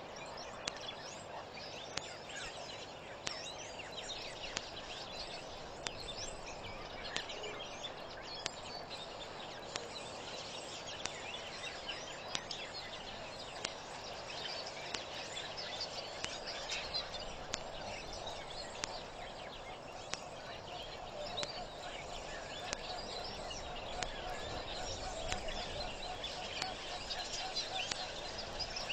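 Outdoor bird chorus: many birds chirping and calling at once over a steady background haze, with a faint tick about once a second.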